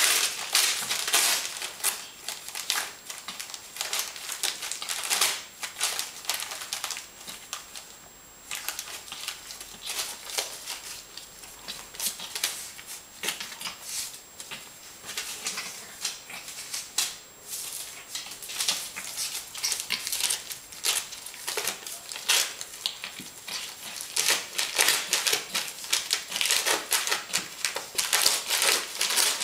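A puppy tearing and chewing a sheet of glossy paper: fast irregular rustling, crinkling and ripping. It eases off for a few seconds about eight seconds in and is busiest near the end.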